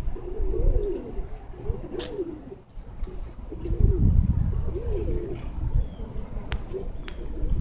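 Domestic pigeons cooing, a series of rising-and-falling coos about one a second, over a low rumbling noise that swells about halfway through.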